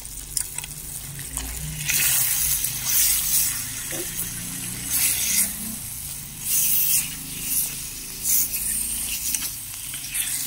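Chicken pieces being stirred with a spoon in a steel pot over a wood fire, sizzling and scraping in short bursts about once a second from about two seconds in; the stirring keeps the chicken from sticking to the bottom.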